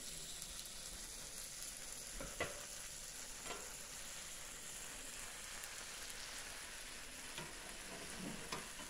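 Food frying in a cast iron skillet on a coal stove, a steady sizzle with a few scattered clicks.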